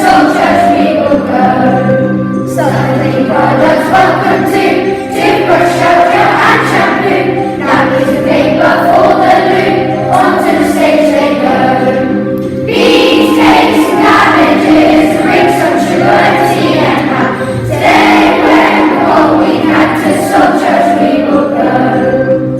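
A group of children singing a harvest song together over instrumental backing.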